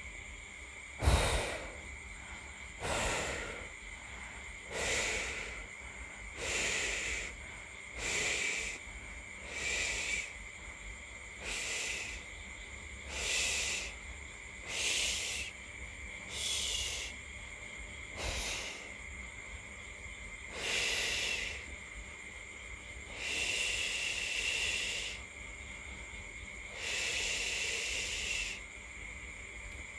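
A latex balloon being blown up by mouth: repeated puffs of breath forced into the balloon's neck, roughly every one and a half to two seconds, the puffs growing longer as the balloon fills.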